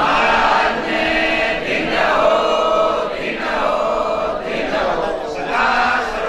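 A group of voices chanting a devotional chant together, in repeated phrases about a second long, with one voice amplified through a microphone.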